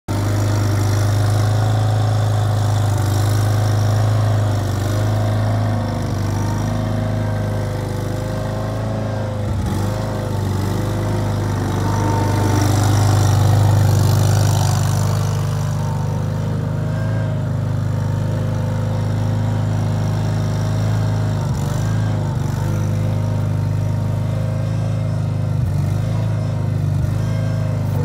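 Mustang 921 skid steer loader's engine running steadily as the machine drives and turns, with a higher whine above it that wavers up and down in pitch and a few brief dips in the engine note.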